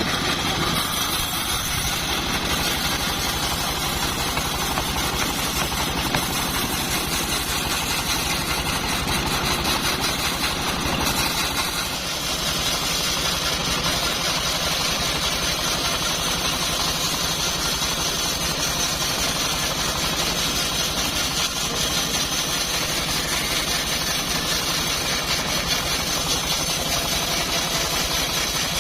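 Homemade bandsaw mill running steadily, its machine drive humming while the blade saws through old teak heartwood; the sound shifts slightly about twelve seconds in.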